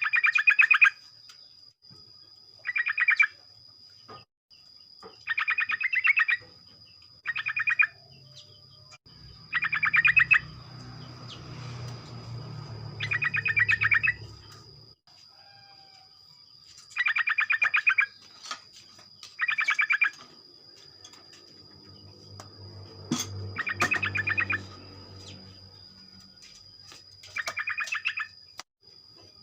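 Yellow-vented bulbul (trucukan) singing: about ten short chattering phrases of rapid notes, one every two to three seconds, over a thin steady high tone. A low rumble comes up twice underneath.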